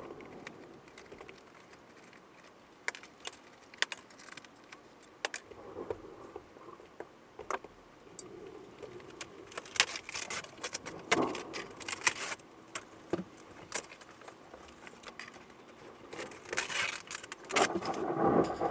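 Irregular clicks, snaps and crackles of thin RV ceiling board being pulled down and broken away, with a denser stretch of scraping and rustling near the end.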